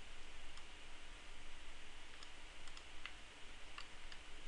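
Faint, scattered computer mouse clicks, several in quick succession about halfway through, over a steady low recording hiss.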